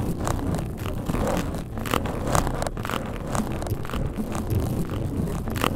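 A ladybird beetle's feet ticking and scratching on a hard surface, picked up close and heavily amplified: irregular sharp clicks, several a second, over a steady low rumble of boosted microphone noise.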